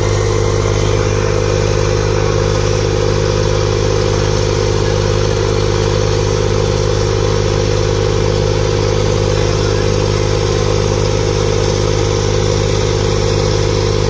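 Diesel engine of an L&T-Komatsu hydraulic excavator running at a steady speed while it blows out dense white exhaust smoke. The note holds even in pitch and level throughout.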